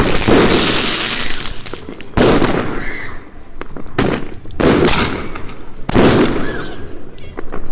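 Fireworks going off: four loud bangs, each trailing into a crackling hiss, spaced about two seconds apart.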